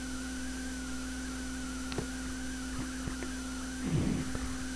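Steady electrical hum with a faint wavering high whine over it, and a single small click about two seconds in.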